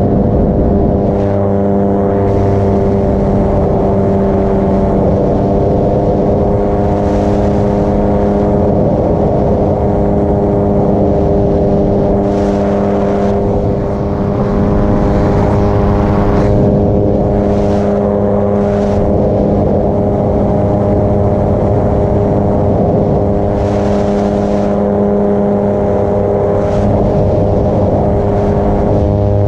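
Paramotor engine and propeller running at a steady throttle, a loud constant drone, with rushing wind noise that swells several times.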